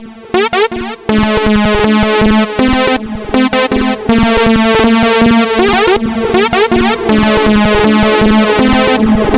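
Electronic synthesizer music with fast repeating notes and sweeping pitch glides over a steady held drone. It thins out briefly just at the start, then comes back in full.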